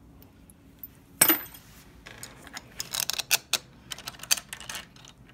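Metal deadbolt lock parts and screws being handled: a sharp metallic clink about a second in, then a run of quick clicks and taps.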